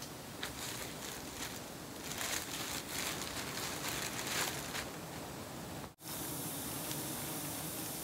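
Rustling and crinkling of a plastic bag and branches over a steady hiss, densest from about two to five seconds in, with a brief dropout about six seconds in.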